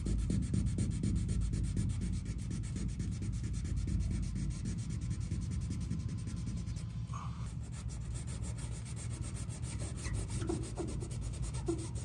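Wet sanding by hand: 600-grit wet sandpaper on a small sanding block, steady rubbing over wet automotive paint. It is cutting down the raised tip of a paint run to level it.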